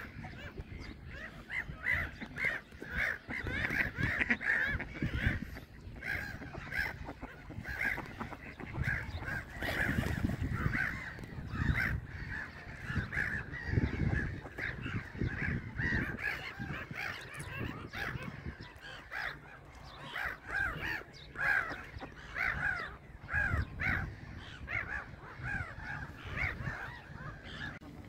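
A flock of gulls calling, many short calls overlapping in quick succession, over a low, uneven rumble.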